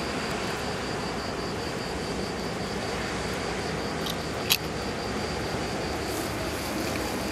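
Steady rumble of a loaded container barge under way on the river, with a faint high pulsing tone running over it and one sharp click about four and a half seconds in.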